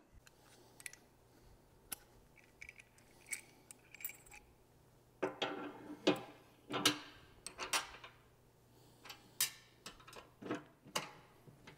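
Steel washers and a plow skid shoe clinking together as they are handled and slid onto the skid's threaded post, with a cotter pin being worked into the mount. Scattered light metal clicks, with a few louder clanks about halfway through.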